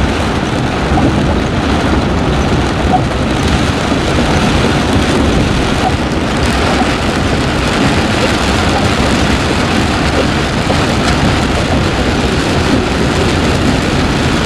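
Vehicle driving a flooded gravel road in heavy rain: a steady, even wash of rain and tyre-on-water noise.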